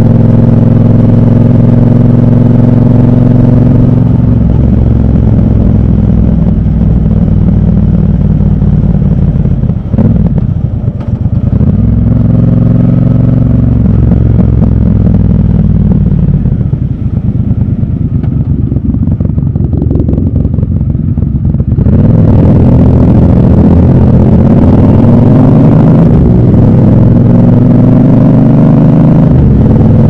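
Triumph Bonneville Bobber's 1200 cc parallel-twin engine heard from the saddle: running steadily at first, then throttled back and quieter through slow traffic, and opened up again about two-thirds of the way in, its pitch rising as the bike accelerates.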